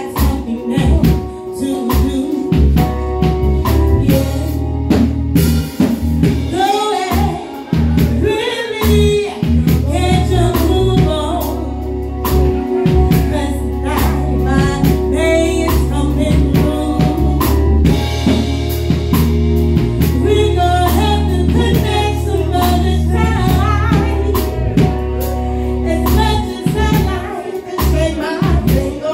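A woman singing into a handheld microphone over music with a drum kit and a steady bass line.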